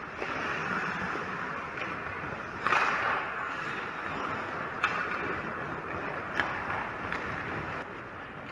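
Ice hockey skates scraping and carving on rink ice, with a louder scrape about three seconds in. Two sharp clacks, about a second and a half apart, come around the middle.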